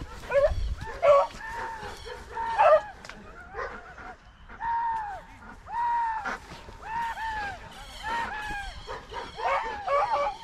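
Hunting beagles baying while running a rabbit: a string of drawn-out, arching hound calls, longest and most regular in the middle stretch.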